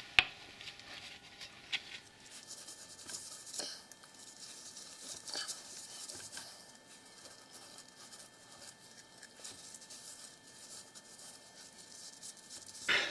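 Copper anti-seize being smeared onto a splined steel axle shaft: faint scratching and rubbing of a gloved hand on the splines, with scattered small clicks and one sharp click just after the start.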